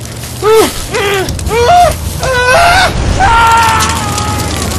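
High-pitched human vocal cries: a string of short yelps that rise and fall, then one long held scream from about three seconds in that sags slightly in pitch.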